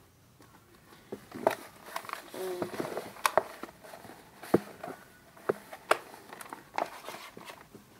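Magazine paper rustling and crinkling as the poster pages are handled and moved, with scattered sharp crackles.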